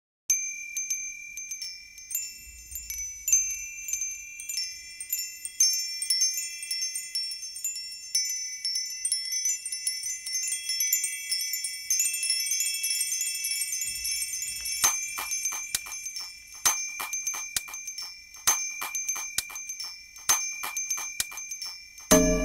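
Soundtrack music opening with high, ringing chime notes struck in a loose, irregular pattern. The notes grow busier about two-thirds of the way through, and fuller music with a low bass comes in right at the end.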